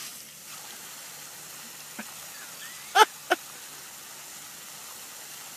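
Steady hiss of a jet of water spraying from a hose-fed fitting into a swimming pool. About three seconds in come two brief vocal sounds in quick succession.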